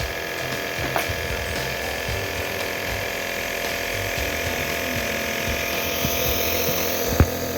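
Home compressor nebulizer running with a steady electric motor buzz. Two short clicks cut through it, one about a second in and one near the end.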